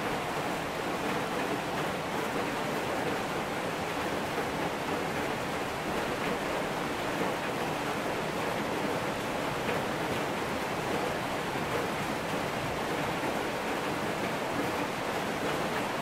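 Steady rain falling, an even hiss with no thunder or other distinct sounds.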